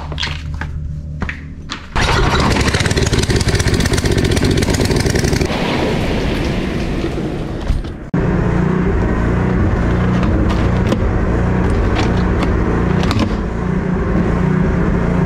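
Portable generator's small engine running steadily and loudly, with a low hum. It cuts out for an instant about eight seconds in, then carries on.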